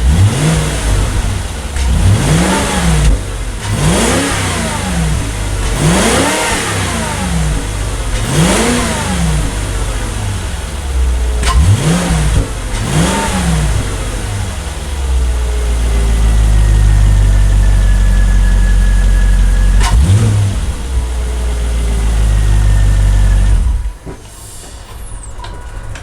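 2010 Volvo S80's 4.4-litre V8 breathing through its stock air box, heard from under the hood: the engine is revved up and let fall back about six times, then held at raised revs for several seconds with one brief dip, and drops back to idle near the end.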